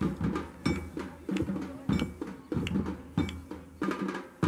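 Drums beating a steady rhythm, the accompaniment to a lezim drill: strong beats about every two-thirds of a second with lighter strokes between, and short metallic rings over them.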